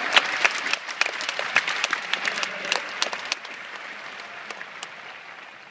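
Stadium crowd applauding, a dense patter of many hands clapping that is loudest at first and dies away over the last two seconds.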